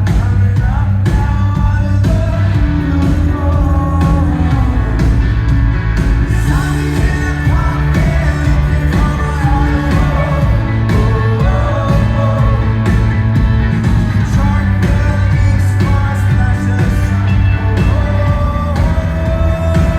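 Rock band playing live, loud, with a lead singer singing over guitars, bass and drums.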